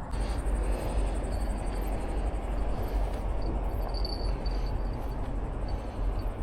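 Rustling, rumbling noise of the microphone being carried along on foot, with crickets chirping faintly.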